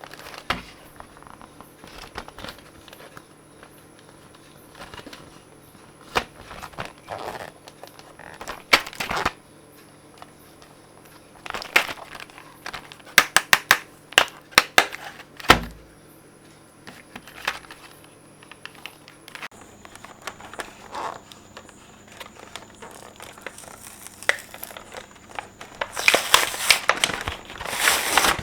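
Toy car packaging being handled and opened: plastic and cardboard crinkling and tearing, with scattered sharp clicks. A longer, louder spell of crinkling comes near the end.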